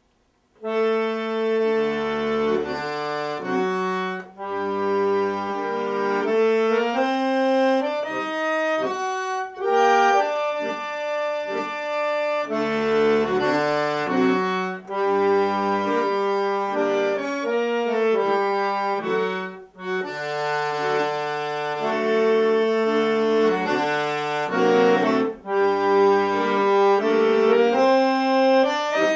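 Accordion playing a solo piece, held chords and a melody over low bass notes that come and go. It starts about half a second in.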